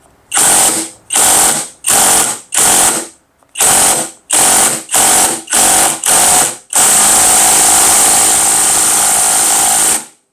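Kobalt 24V brushless impact driver (KID 124B-03) in finish mode driving a construction screw: about nine short bursts of impacting, then one steady run of about three seconds that cuts off near the end. Finish mode is meant to sink the screw flush, but here it does not really work well.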